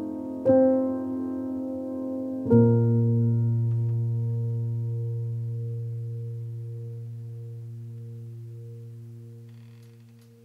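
Background piano music: a chord is struck about half a second in and another about two and a half seconds in, and the last one is left to ring and slowly fade away near the end.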